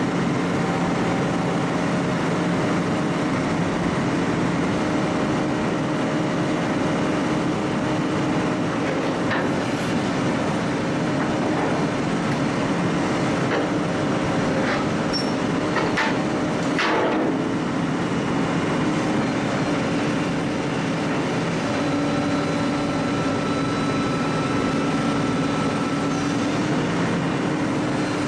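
Heavy machinery running steadily, with a few sharp knocks about halfway through.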